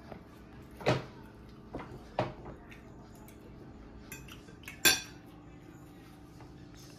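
Utensils clinking against plates and dishes at a meal table: a handful of short, scattered clinks, the loudest nearly five seconds in.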